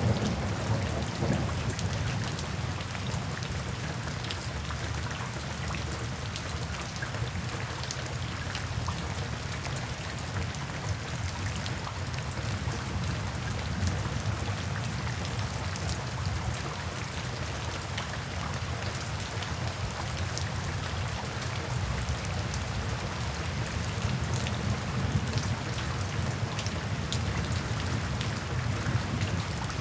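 Steady rain drumming on a tin roof, with individual drops ticking sharply over a continuous low rumble.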